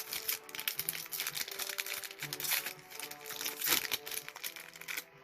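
Plastic wrapper of a trading-card booster pack crinkling as it is handled, dense and crackly, over background music with held notes.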